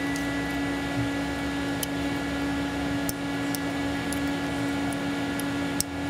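Steady mechanical hum with a constant tone, over a few faint small clicks of a metal pick working at a plastic wiring connector.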